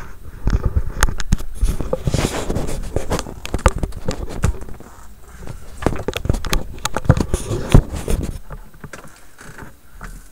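Handling noise from a handheld camera being moved and set back down: a jumble of rubbing, clicks and knocks right on the microphone, settling down near the end.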